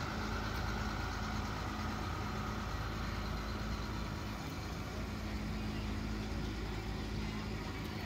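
Case IH 8920 tractor's diesel engine running steadily at a low, even pace as the tractor passes close by.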